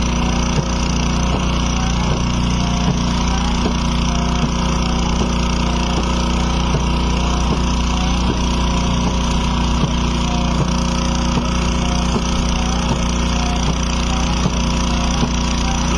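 Motorboat engine running at a steady speed, a constant low hum, with faint irregular ticks over it.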